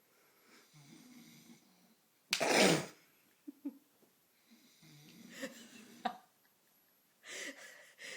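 A sleeping man snoring, with slow, rasping, wheezy breaths coming every few seconds. A loud, short burst of noise about two seconds in is the loudest sound, with a few faint clicks after it.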